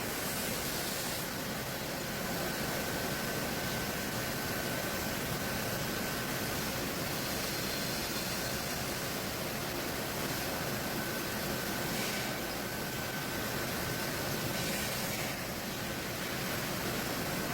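Sawmill machinery running: a steady mechanical noise with a faint high whine.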